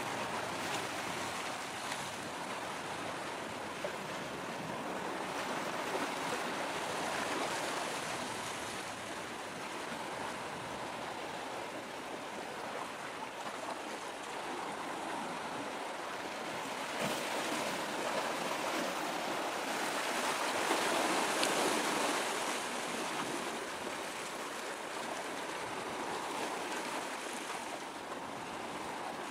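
Steady rushing noise of wind and water at the harbour's edge, with no clear engine tone. It swells louder for a few seconds a little past the middle.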